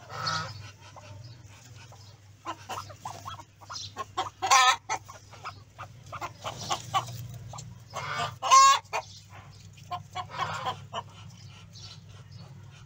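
Domestic fowl calling: several short, harsh calls spaced a second or two apart, the loudest two a few seconds apart near the middle, over a low steady hum.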